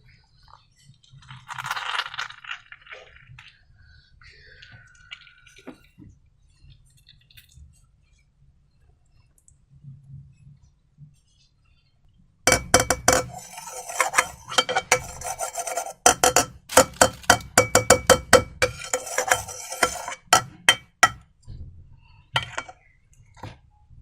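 A utensil clinking rapidly against a ringing bowl, several strikes a second for about eight seconds from around the middle, as a mixture is stirred; quieter handling noises come before it.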